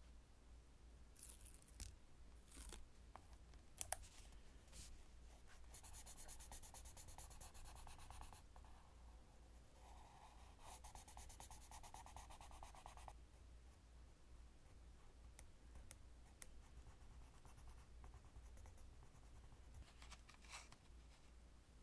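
Yellow coloured pencil scratching quickly back and forth on paper, shading in two stretches of a few seconds each. A few light clicks and taps come first, from tweezers setting down a label sticker.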